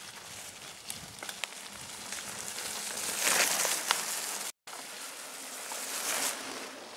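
Mountain bikes riding past close by on a muddy forest trail, their tyres rolling through leaf litter in a hiss that swells as one rider passes about three seconds in and another about six seconds in. The sound cuts out for an instant between the two.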